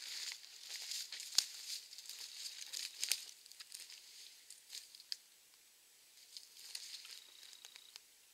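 Footsteps crunching and crackling over dry brush and dead sticks, with sharp twig snaps about a second and a half in and again at about three seconds, quieter from about five seconds on.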